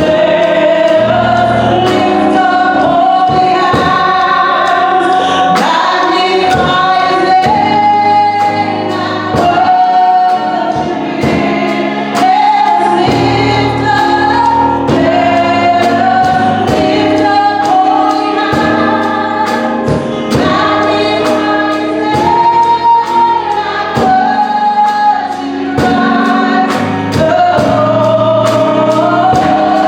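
Gospel worship music: a group singing a praise song together with a band, over a steady beat.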